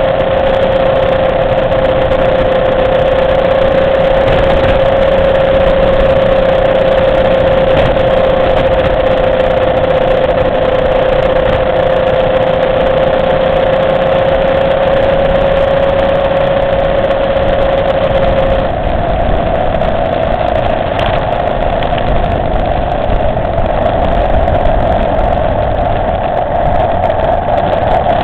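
Motorcycle engine running at a steady cruising speed on the road, its note holding one pitch over a constant rushing noise. About two-thirds of the way through the note changes and settles a little higher.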